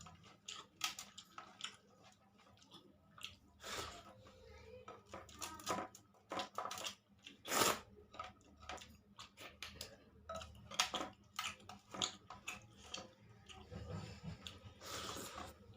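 Someone eating a rice-and-curry meal close to the microphone: chewing with irregular wet smacks and clicks of the mouth.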